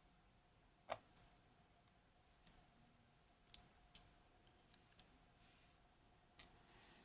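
Faint, irregular sharp clicks from a pick and tension tool working the pins of a Kaba Gemini S high-security lock, which has three rows of pins, as the pins are being picked.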